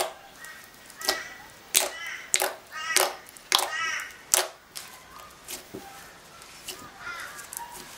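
Slime being stretched and squeezed by hands, giving a run of sharp pops and squeaky squelches as trapped air bursts out of it. The pops come about every half second for the first four and a half seconds, then turn fainter and sparser.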